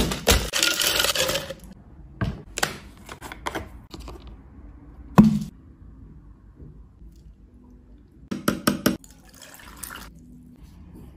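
A muddler pounding lime slices in a plastic cup: a quick run of knocks and grinding, then scattered knocks. A single heavy thud about five seconds in, and near the end a quick cluster of clinks followed by liquid poured over ice.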